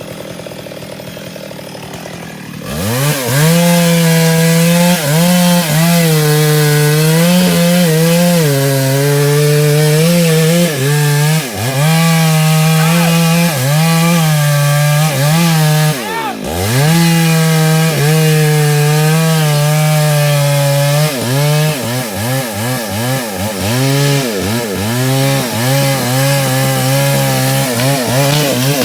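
Stihl two-stroke chainsaw opening up to full throttle a few seconds in and cutting wood, its engine note dipping and recovering again and again under load. The note drops deeply once about sixteen seconds in, and dips in quick succession near the end.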